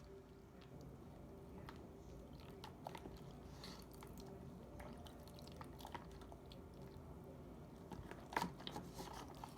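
Faint small clicks and squishes of a water-soaked slime being handled, scattered irregularly over a low steady hum, with a slightly louder cluster of clicks near the end.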